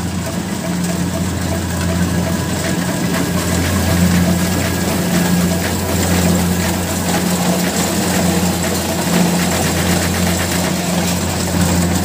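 Kubota DC-70 Plus rice combine harvester running as it cuts ripe rice: a steady diesel engine drone with the clatter of the cutting and threshing machinery, growing a little louder as the machine approaches.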